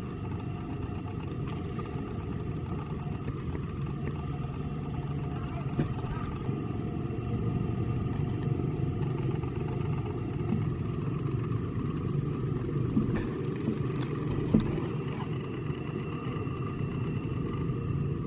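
A motor running steadily with a low drone, with a few faint knocks over it.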